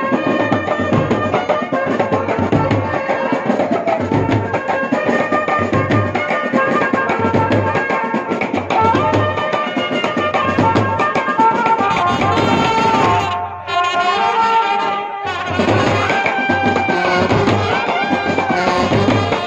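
Brass wedding band playing: trumpets and saxophones carry a melody over a steady beat of marching drums. The sound drops away briefly about two-thirds through, then resumes.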